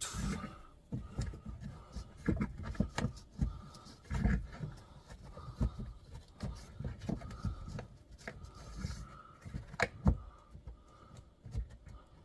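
Irregular knocks, clicks and scraping of hands fumbling at the antenna wiring inside the vehicle's roof, feeling for the connector. Under them a faint tone repeats about once a second.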